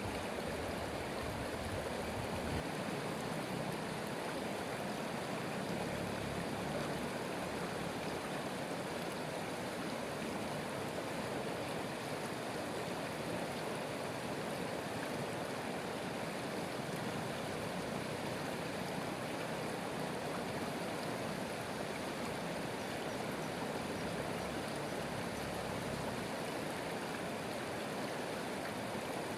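Stream water flowing steadily over rocks: a constant rushing with no change in level.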